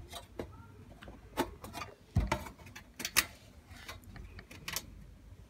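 Irregular light clicks and taps of small parts being handled and fitted against the sheet-metal base of a small electric ceramic hob, with a duller knock about two seconds in and a pair of sharper clicks about a second later.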